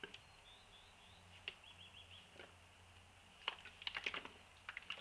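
Light plastic clicks and taps from handling an oil squirt bottle, with a quick run of them about three and a half seconds in.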